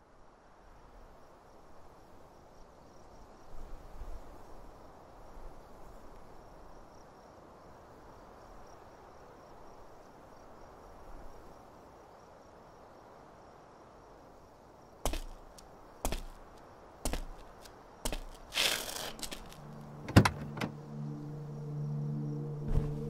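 Film soundtrack: a faint steady hiss-like ambience, then a run of sharp knocks or clicks from about fifteen seconds in, one trailing into a short rasping noise. A low held drone of steady tones enters near the end.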